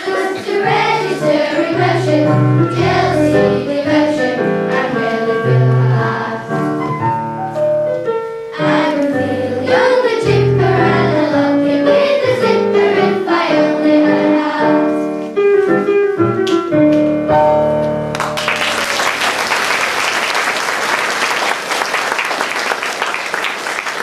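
Children singing a song together over an instrumental accompaniment with a steady bass line; the song ends about 18 seconds in and the audience breaks into applause.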